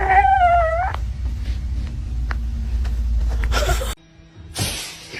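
A cat's long, drawn-out meow, wavering in pitch and ending about a second in, over a steady low rumble. The rumble cuts off sharply about four seconds in, and a short burst of noise follows near the end.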